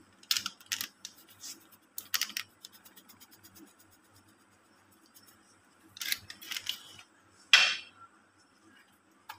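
Short crisp rustles, scrapes and clicks as kofta spice mix is spooned out of its packet onto minced beef in a plastic bowl. They come in a few scattered clusters, with the sharpest about three-quarters of the way through.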